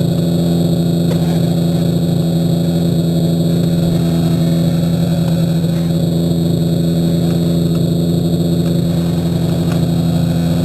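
Yamaha snowmobile engine idling at a steady, unchanging speed.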